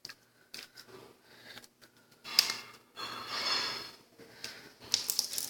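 Slime being worked by hand, squishing and crackling with small clicks, with a sharp pop about two and a half seconds in and a longer squelching stretch just after.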